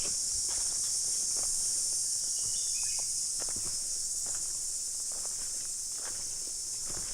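Steady high-pitched insect chorus of forest crickets or cicadas, with a person's footsteps on a trail about every half second to a second and a couple of short high chirps about two and a half seconds in.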